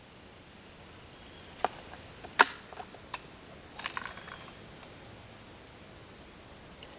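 Metallic clicks and a sharp clack from a rifle being handled: a click, a louder clack about a second later, then a quick cluster of small rattling clicks.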